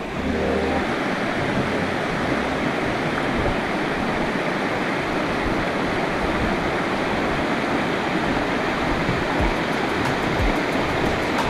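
Steady rush of flowing Frio River water.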